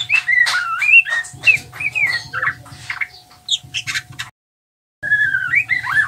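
Young male white-rumped shama singing its learning subsong: a quick run of varied whistles and chattering twitters. The song breaks off about four seconds in and starts again, with a rising whistle, near the end.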